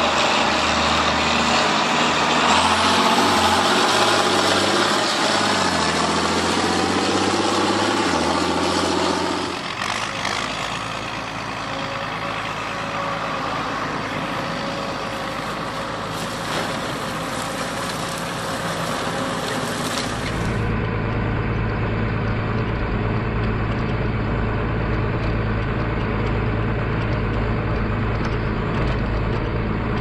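John Deere six-cylinder diesel tractors with open straight-pipe exhausts, running under load across several shots. First comes the engine of a tractor pulling a loaded tri-axle trailer, its pitch shifting. A steadier machinery noise follows, and from about two-thirds in, a heavy, deep engine drone.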